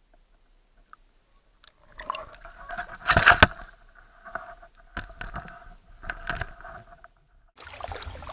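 Handling noises while a landed carp is dealt with: a few sharp knocks, scrapes and wet rustles, loudest just after three seconds in, over a faint wavering two-note tone. The first couple of seconds are near silent.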